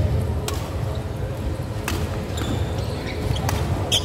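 Badminton doubles rally: sharp racket hits on the shuttlecock about every second and a half, with footsteps on the court and a steady low hum in the hall.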